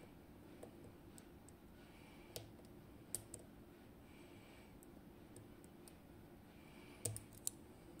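Faint, sparse metallic clicks of a hook pick working the pins inside a DOM IX Twido cylinder lock held under tension: a few single ticks early on and about two and three seconds in, then a short cluster of clicks near the end.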